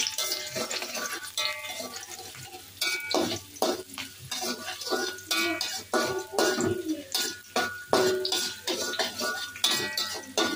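A metal slotted spatula scraping and clanking against a thin aluminium wok while aromatics are stir-fried in hot oil. The strokes are irregular, a couple a second, and many leave a brief metallic ring over the sizzle of the oil.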